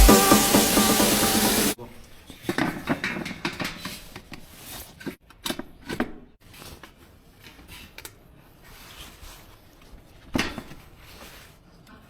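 Electronic dance music that cuts off suddenly about two seconds in. Then scattered light knocks, clicks and scrapes of parts being handled while a top-loading washing machine is taken apart, with a sharper knock near the end.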